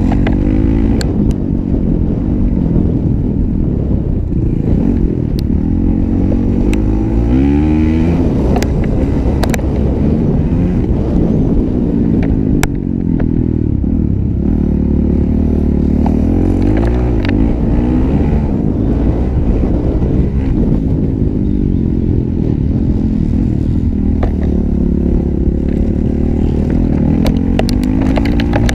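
Honda 450 motocross bike's single-cylinder four-stroke engine under race load, its pitch climbing and dropping every few seconds as the rider accelerates out of corners and shuts off into them. Scattered sharp clicks run through it.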